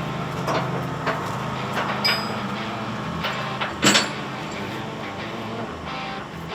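Heavy diesel machinery running steadily, with a series of sharp metallic clanks and knocks; the loudest clank comes about four seconds in.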